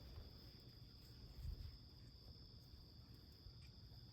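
Faint, steady chirring of crickets, with a low background rumble.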